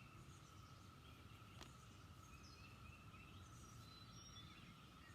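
Near silence: faint background with scattered distant bird chirps and a steady faint high tone.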